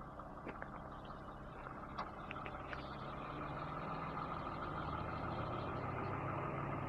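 A vehicle engine idling steadily, a low hum that grows a little louder toward the end, with a few faint clicks.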